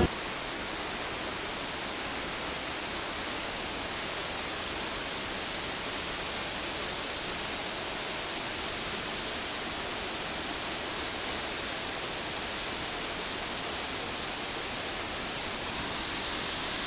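Steady rushing of water pouring over a small waterfall, an even hiss that grows a little louder near the end.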